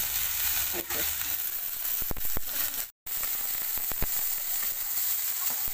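Sliced onion, garlic and chilies sizzling in hot oil in a metal karahi while being stirred with a wooden spatula, with a few sharp clicks. The sound cuts out for a moment about three seconds in.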